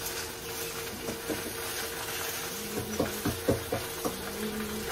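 Stainless steel plates and bowls clinking and knocking as they are handled and stacked, with a run of light knocks in the second half, over a steady hiss from the cooking on the gas stove.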